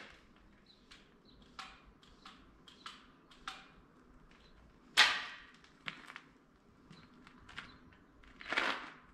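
Scattered clicks and knocks of hands and tools working on a tractor, with one sharp, loud metallic bang about five seconds in that rings briefly, and a duller knock near the end.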